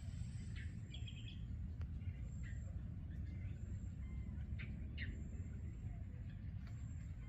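Wild birds giving short, scattered chirps over a steady low rumble.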